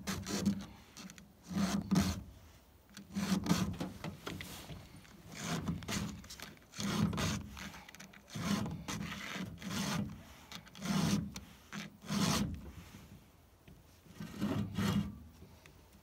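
Round file rasping across the cutting teeth of a Stihl saw chain in even strokes, about one every second and a half: the chain being hand-sharpened with a file.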